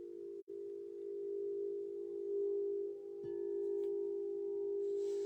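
Violet aura gold crystal singing bowl sounding a steady, sustained tone with a slow waver in it. It cuts out for an instant about half a second in. Fainter, higher ringing tones join from about a second in.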